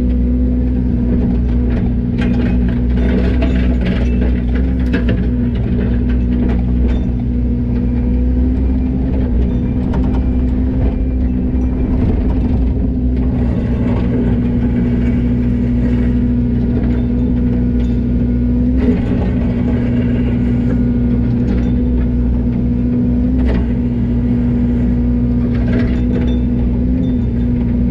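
A heavy-equipment diesel engine running steadily at constant speed, with scattered light clicks and knocks of machinery over it.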